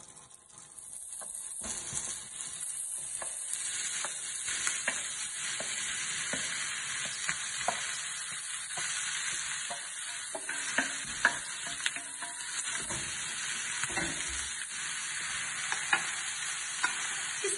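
Flaked steamed whiting frying in melted butter in a frying pan, sizzling steadily, with the sizzle building up about a second in as the fish goes in. A wooden spoon stirs it, knocking and scraping against the pan again and again.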